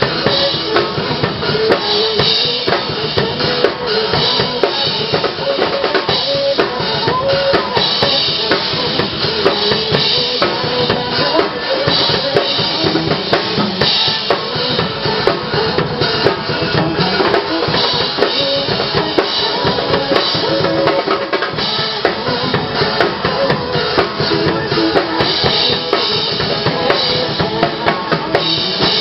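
A drum kit being played, a continuous busy beat of kick drum and snare strokes with music behind it.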